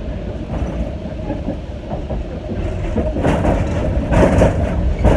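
Tram running on its rails, heard from inside the car: a steady low rumble that grows louder with rattling from about three seconds in.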